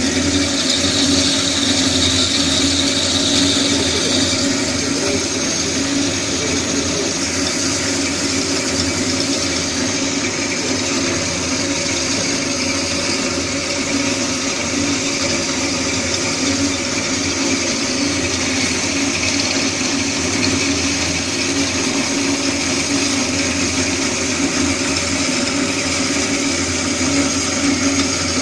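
Metal-cutting band saw machine running steadily: a constant mechanical hum with a high hiss from the blade, and a brighter high-pitched tone over the first four seconds or so.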